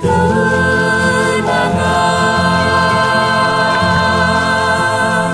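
A choir singing long, held notes over the song's backing music, the chord shifting about a second and a half in.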